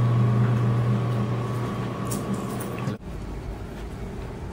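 Steady low hum of refrigerated vending machines, with a thin higher tone over it, stopping abruptly about three seconds in; after that, faint room tone.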